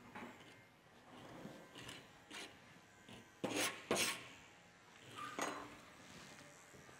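Scattered short rubbing strokes of a grooming brush and comb through a Shih Tzu's coat, mixed with light tool clicks. The two loudest strokes come about three and a half and four seconds in.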